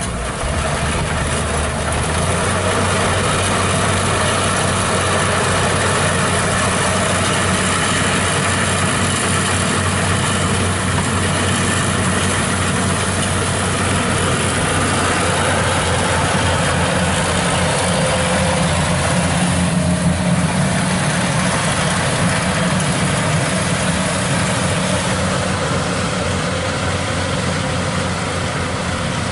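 Kubota 95 combine harvester running steadily: the diesel engine's drone over the constant rush of the cutting and threshing machinery.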